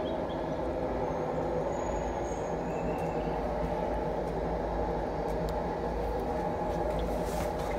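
Steady low mechanical drone that holds an even pitch throughout.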